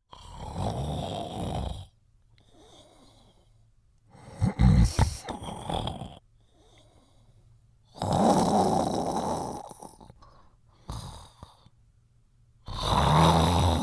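Snoring: four loud snores, each about two seconds long, coming about every four seconds with quiet gaps between them.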